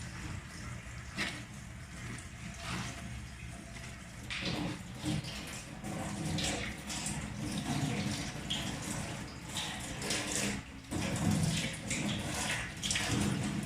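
Tap water running into a sink while vegetables are rinsed under it, with irregular splashing as they are moved about in the stream.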